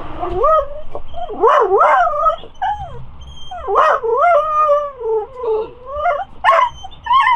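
A dog whining and yipping in a long run of cries, their pitch sliding up and down one after another, with a few short sharp yips among them.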